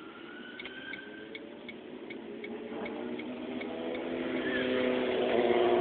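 A car's turn-signal indicator clicking steadily, about three clicks a second, heard from inside the cabin. In the second half a vehicle engine grows louder.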